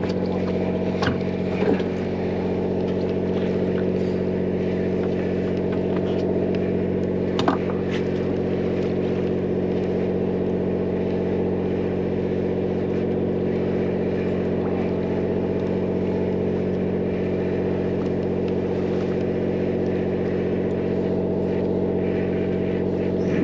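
Charter fishing boat's engine running steadily, a constant hum, with a few short knocks on deck early on and about a third of the way in.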